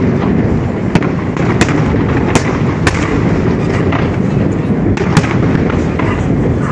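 Aerial firework shells bursting: a string of sharp bangs, roughly one every half second to second and irregularly spaced, over a steady low rumble.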